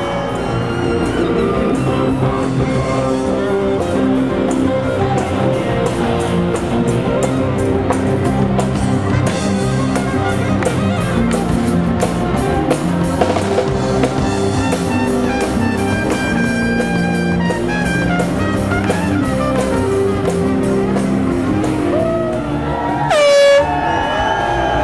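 Live band playing an upbeat song through a PA, with saxophone and a drum kit keeping a steady beat. Near the end a single loud tone slides sharply down in pitch over the music.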